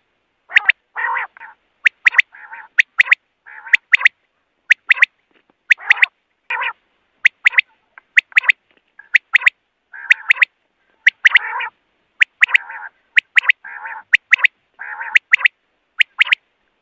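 Common quail calling over and over: sharp, high pitched notes in quick pairs and triplets, alternating with quieter, hoarse, rasping notes, roughly one group every second.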